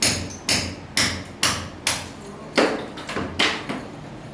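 Hammer blows breaking down a wall during house repair work, a steady run of sharp knocks about two a second, one of them heavier a little past halfway.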